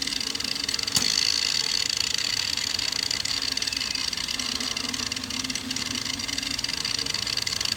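Homemade tennis ball launcher running, its two Ryobi 12-volt angle grinders spinning the rubber-banded launching wheels with a steady high whine. A single sharp crack about a second in as a ball is fired out between the wheels.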